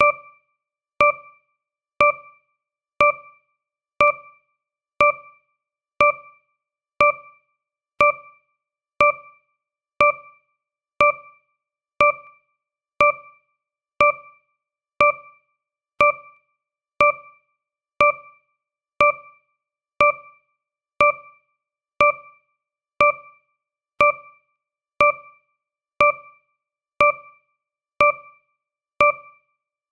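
Countdown timer's tick sound effect: a short, bright electronic tone with a click at its start, sounding once every second and fading quickly each time.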